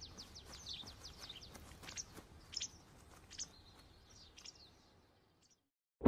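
Faint forest ambience with small birds chirping: a quick run of falling chirps in the first second, then scattered single calls, all fading out to silence about five seconds in.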